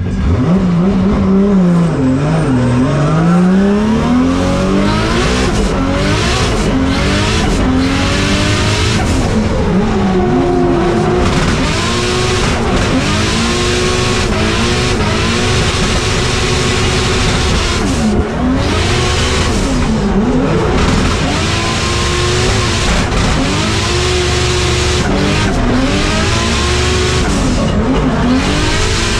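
Toyota JZX100 Mark II drift car heard from inside the cabin on a drift run: the engine revs up and falls back again and again, its pitch swinging with each throttle stab, over a steady rush of tyre and road noise as the car slides.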